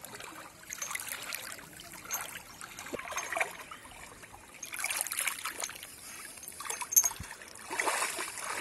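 River water sloshing and trickling as a person wades through it, dragging a chained chicken bait with a large fish on it: irregular swishes, louder about halfway through and again near the end, with one sharp click about seven seconds in.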